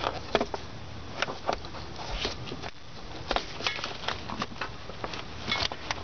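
Gloved hands working the stubborn plastic grommet of a 1997 Volvo 850's accelerator cable at the firewall: irregular small clicks, scrapes and rustles.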